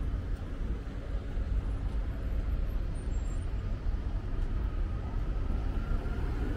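Road traffic: cars driving past slowly, with a steady low rumble.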